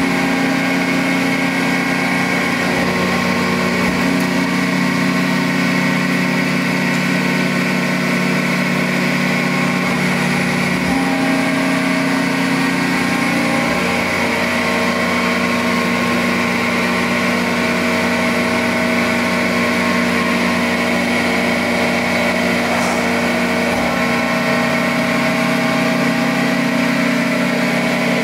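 Accurpress CNC hydraulic press brake running, its hydraulic pump and motor giving a steady hum. The note of the hum shifts around 11 and 14 seconds in, and again near 24 seconds, with a few faint clicks.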